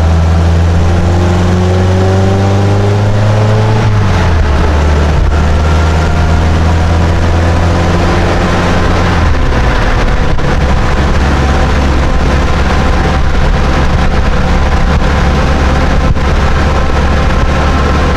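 Model A Ford coupe's engine pulling the car down the road, heard from inside the cab. The revs climb, then drop as it shifts up a gear about four seconds in, and again about nine seconds in, after which it runs steadily at cruising speed.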